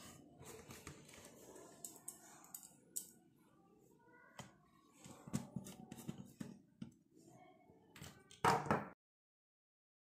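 Screwdriver turning small screws into the metal frame of a copier's control-panel LCD mount: faint scattered clicks and scrapes of tool and parts being handled, with a brief louder clatter near the end.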